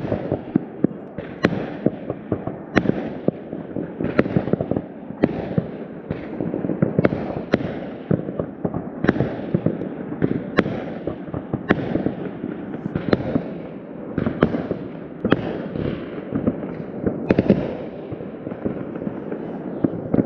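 Many fireworks going off at once: sharp bangs about once a second over a constant crackle and rumble of further bursts.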